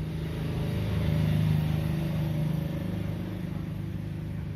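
Low engine hum that grows louder about a second in and then eases off again, like a road vehicle passing by.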